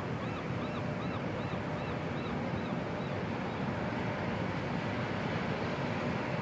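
Steady outdoor city background noise, an even low rumble. A faint run of high chirps, about two and a half a second, rides over it and fades out around halfway through.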